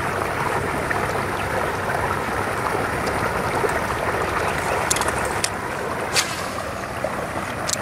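Steady rushing outdoor noise with no clear pitch, with a few short sharp clicks in the second half.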